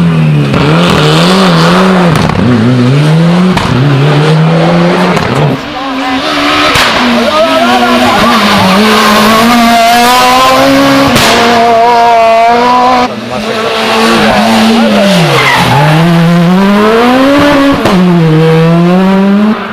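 Rally cars driven hard on a special stage, engines revving high and dropping repeatedly through gear changes and lifts. The sound cuts abruptly about five and a half seconds in and again about thirteen seconds in, as it passes from one car to the next.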